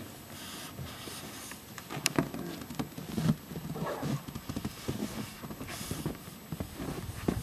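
Footsteps crunching through deep snow, a run of uneven steps that starts about two seconds in, with a sharper crunch at the first step.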